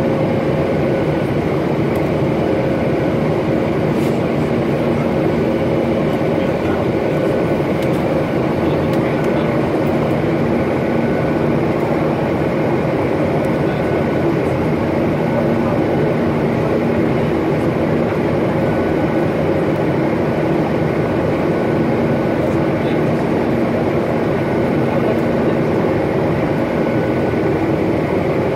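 Jet airliner cabin noise in flight, heard from a window seat over the wing: the steady rush of the engines and airflow through the fuselage, with a few faint steady hums underneath.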